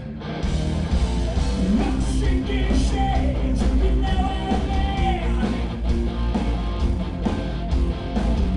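Live rock band playing, loud electric guitar under a sung vocal line, after a brief drop in the sound right at the start.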